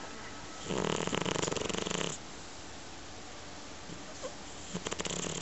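A sleeping pet snoring. There are two fluttering snores: a long one starting just under a second in and lasting about a second and a half, and a shorter one near the end.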